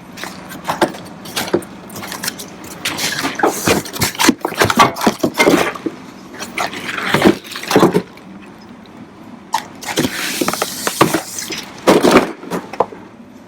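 Packaging being pulled off a new fender: irregular crinkling, rustling and tearing with scattered clicks and knocks, coming in bursts.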